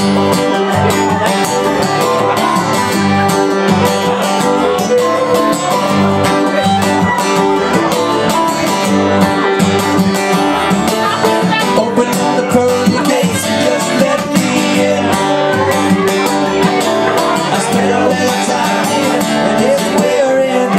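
Acoustic string band playing live: strummed acoustic guitars with a bowed fiddle, in a country-style song.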